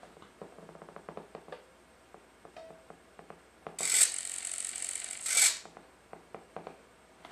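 Pre-start sequence from the Benedini sound card of an RC SU-100 tank model: a run of quick mechanical clicks, a few scattered clicks, then a hiss lasting nearly two seconds about four seconds in.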